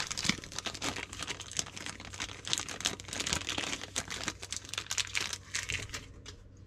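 Small clear plastic bag crinkling and rustling in the fingers as it is worked open to take out a replacement rubber seal. The crackles come in a quick, irregular run and die away near the end.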